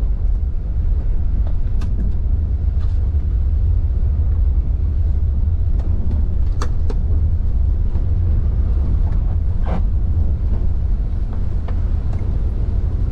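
Intercity coach driving on a wet highway in heavy rain, heard from inside the cab: a steady low rumble of engine and road noise, with a few short sharp clicks.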